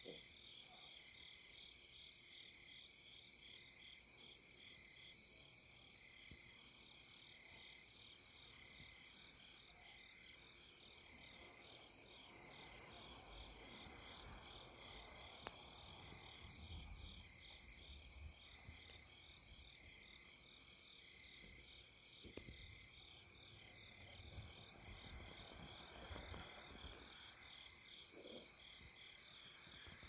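A night chorus of crickets and other grass insects: several overlapping songs trilling steadily at once, one a high continuous trill and a lower one chirping in a regular pulse. A faint low rumble comes and goes in the middle.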